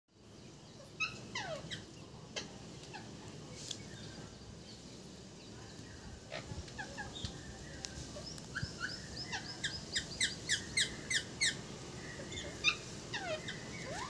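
Pet parrot calling: scattered short whistles and downward-sliding chirps, then a quick run of sharp repeated calls, about four or five a second, around ten seconds in.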